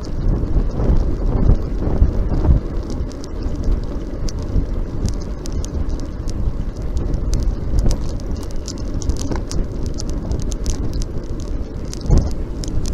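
Wind buffeting the microphone of a camera on a moving road bike, a steady low rush, with scattered small ticks and rattles throughout.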